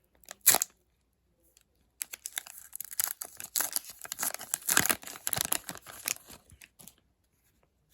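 A foil hockey card pack wrapper being torn open and crinkled: one sharp rip about half a second in, then about five seconds of continuous crackling and rustling as the wrapper is pulled apart and the cards slid out.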